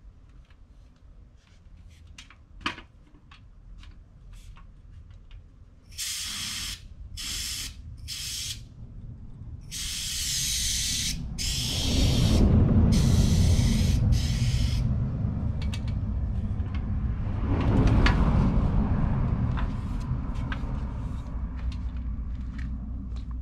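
Aerosol insecticide can spraying in bursts: four short hisses, then two longer ones of a couple of seconds each. A low rumbling noise swells in the second half, loudest about three quarters in.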